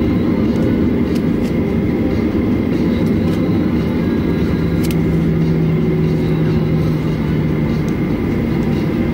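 Cabin noise of a Boeing 737-800 taxiing on its CFM56 engines at idle: a steady low rumble with faint steady whine tones above it. A lower hum joins for a few seconds in the middle, and there is a single click about five seconds in.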